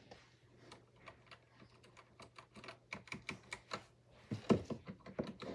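Keys of a Redragon compact mechanical keyboard being pressed: scattered light key clicks, then a louder, quicker run of keystrokes about four seconds in. The keys click and clack without rattling.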